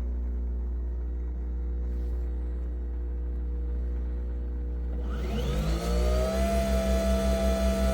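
Nespresso Vertuo Pop+ coffee machine running: a steady motor hum, then about five seconds in a rising whine as the capsule spins up, levelling off into a steady high whine over a fast pulsing low throb.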